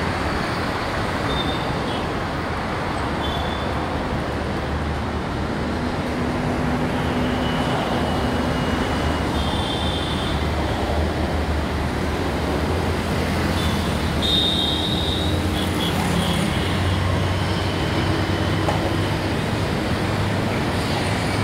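Steady city road traffic: car, bus, motorcycle and auto-rickshaw engines with tyre noise. A heavy vehicle's low engine drone grows louder in the second half, and a few brief high-pitched beeps sound now and then.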